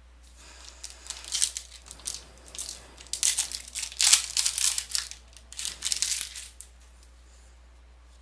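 Plastic wrapper of a trading-card pack being torn open and crumpled: a run of irregular crinkling and crackling, loudest around the middle, that stops well before the end.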